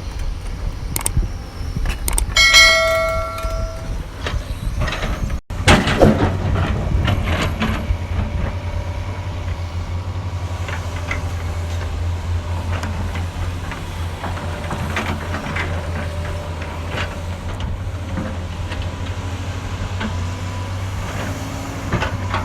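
Excavator's diesel engine running steadily under load, with scattered clanks and knocks of the working machine. About two and a half seconds in comes a brief metallic ringing lasting about a second.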